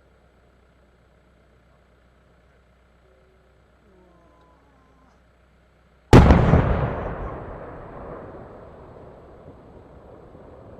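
A single very loud blast from a large firework shell bursting. It hits suddenly, then rumbles and echoes away over several seconds.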